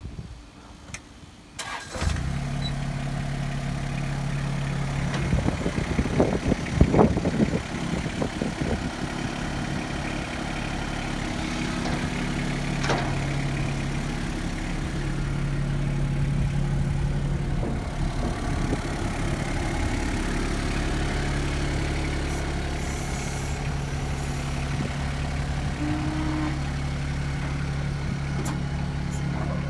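Yanmar 324 compact tractor's diesel engine starting about two seconds in after a few clicks, then running steadily at idle. A few seconds after it catches there is a stretch of uneven knocking and rattling before it settles.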